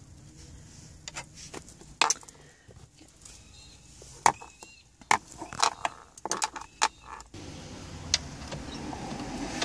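Phillips screwdriver driving screws into a car's plastic centre-console trim, with scattered small clicks and knocks of the tool and plastic. A steady low noise comes in about seven seconds in and carries on.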